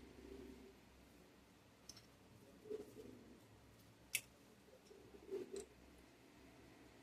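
Faint clicks of small tools and parts being handled while a model locomotive's motor is taken apart, with one sharper click about four seconds in.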